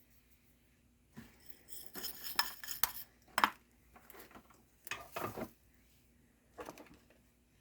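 Small hard objects clinking and rattling as tools and parts are handled on a workbench, in several short clusters of clicks after about a second of quiet.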